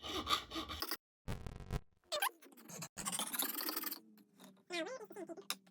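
Fine file scraping on a small steel watch pivot turned by hand in a watchmaker's lathe: irregular scratchy strokes with a few thin squeaks, broken by a short dead gap about a second in.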